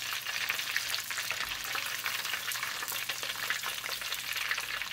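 Breaded chicken wings deep-frying in hot oil in an enameled Dutch oven: a dense, steady crackling sizzle of many small pops.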